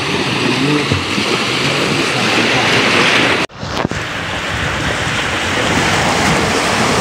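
Sea waves breaking and washing over the shallows, mixed with wind rushing on the microphone. The sound cuts out for an instant about halfway through, then carries on.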